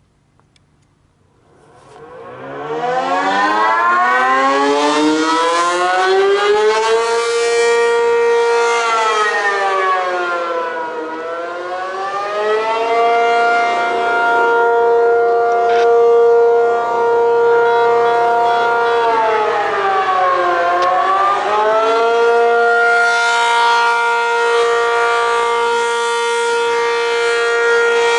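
ACA P-50 outdoor warning siren winding up from silence about two seconds in to a loud held wail, then sounding the Attack signal: its pitch slides down and back up twice, and starts falling again near the end.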